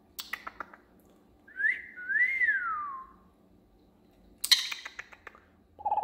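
Cockatiels calling: a few quick sharp chirps at the start, then a clear whistle that slides up and glides back down, and a loud harsh chirp about four and a half seconds in.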